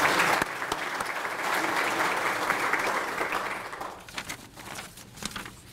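Audience applauding, dying away about four seconds in to a few scattered claps.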